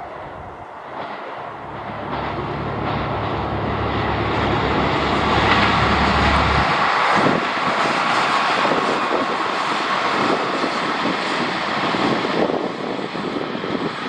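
A Kyoto Tango Railway diesel railcar passing close by. The wheel-and-rail rush builds to its loudest about halfway through, and a low engine drone cuts off suddenly about seven seconds in.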